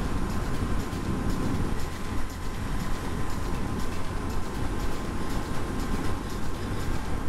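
Wind rush and steady engine drone of a Honda CB900 Hornet (919) inline-four cruising at an even road speed, with heavy wind on the helmet-mounted microphone.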